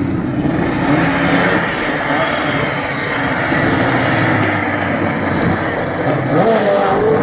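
Engines of racing lawn mowers running, with crowd voices mixed in; one engine note swings up and down near the end.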